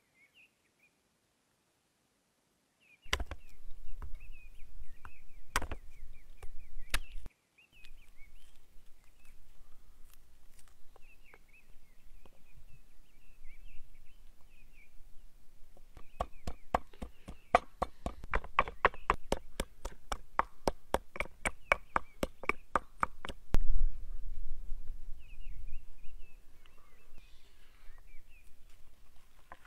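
Garlic being crushed on wood: a few separate sharp wooden knocks, then a fast, even run of about four knocks a second lasting several seconds, ending in a heavier thud. Birds chirp faintly in the background.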